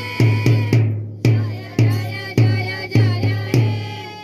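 Music with a heavy drum beat, about two hits a second, under a melody; it fades out near the end.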